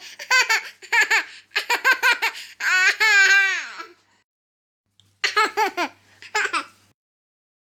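A baby laughing in runs of quick giggles, with one long squealing laugh about three seconds in that rises and falls in pitch, then a short pause before two more bursts of giggles.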